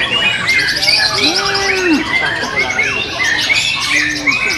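Many white-rumped shamas singing at once: a dense tangle of overlapping whistles, chirps and rapid trills.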